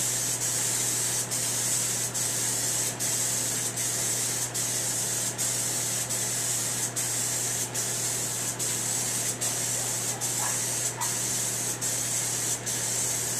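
Aerosol spray can of John Deere Blitz Black paint hissing in one steady, continuous spray, with a short dip in the hiss a little more than once a second.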